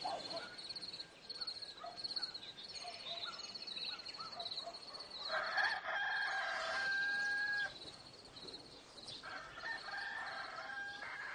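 A rooster crowing: one long crow about five seconds in and a second one near the end. Birds twitter in the background.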